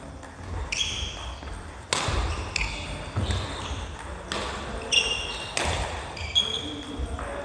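Badminton singles rally: three sharp cracks of rackets striking the shuttlecock, with short high squeaks of court shoes on the wooden gym floor and footfalls between.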